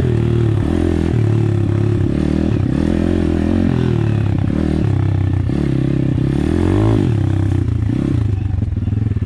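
Apollo RFZ pit bike's single-cylinder engine under way, its note rising and falling again and again as the throttle is worked, with one sharper rev and drop about two-thirds of the way in. A rattle and scrape of the bike over the trail runs underneath.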